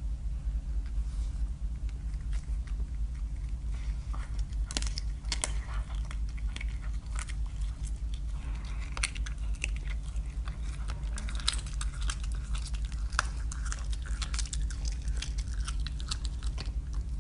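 A caracal biting and chewing raw meat, with a dense run of sharp clicks from its jaws starting about four seconds in and going on until near the end. A steady low hum runs underneath.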